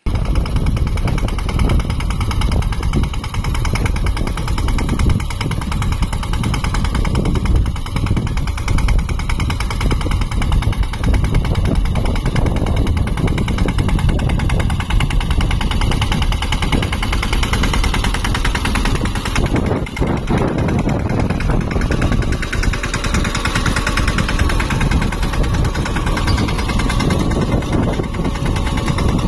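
Mahindra Yuvraj 215 tractor's single-cylinder diesel engine running steadily, close up, with a fast pulsing beat.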